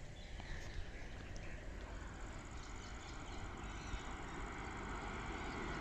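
Faint outdoor background noise: a steady low rumble and hiss, with a couple of soft knocks.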